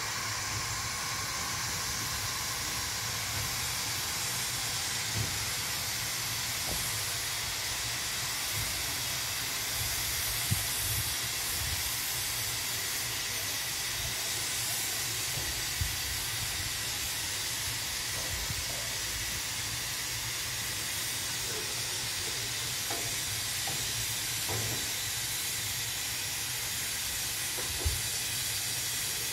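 Steam locomotive standing at the platform, hissing steam steadily, with a few short knocks now and then.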